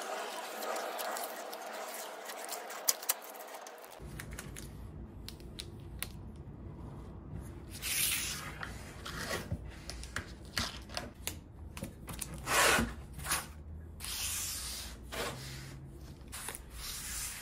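Blue painter's tape being pulled off the roll in several short ripping pulls and rubbed down by hand onto the wooden rail of a dresser, with small clicks and rustles in between.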